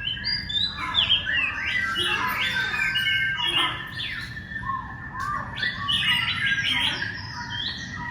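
Many different bird calls overlapping: quick chirps, squawks and whistles that glide up and down in pitch, over a steady high whistling tone that runs through most of it.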